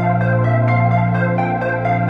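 Background electronic music: sustained synthesizer chords over a steady bass, with a soft repeating pulse in the upper notes.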